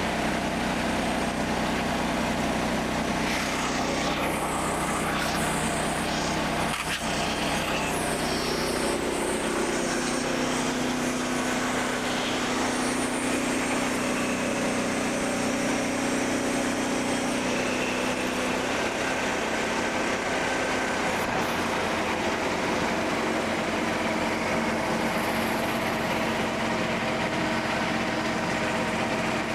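Portable bandsaw sawmill running steadily, its small gas engine and band blade going without a break; about ten seconds in the tone shifts and holds at the new pitch.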